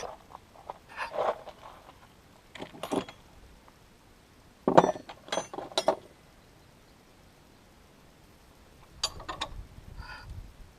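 Metal hand tools and parts clinking and knocking in several short bursts, with a brief squeak near the end.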